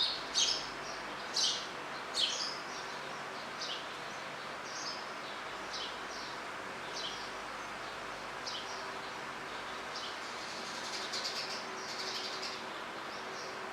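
Birds chirping in short, scattered calls over a steady background hiss, with a quicker run of chirps near the end.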